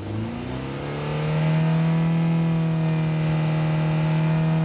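Honda S2000's four-cylinder engine running through a titanium catback exhaust, held at about 3000 RPM, then revved up smoothly over about a second and a half to about 5000 RPM, where it holds steady and louder.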